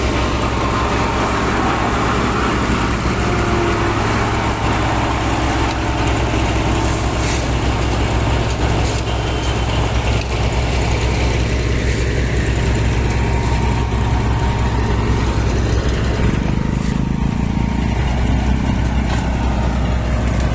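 Heavy road-construction machinery running steadily, a deep engine hum that holds the same level throughout, with a few short clicks over it.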